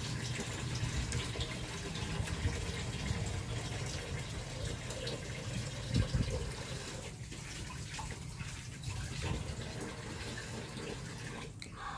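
A steady rushing noise, like running water, with a brief louder moment about halfway through.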